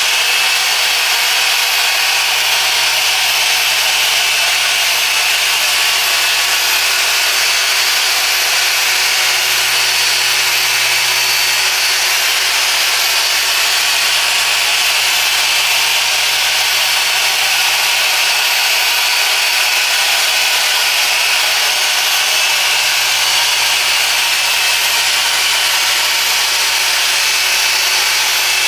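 Machine polisher running steadily as it polishes car window glass: a continuous whirring hiss with a faint high whine.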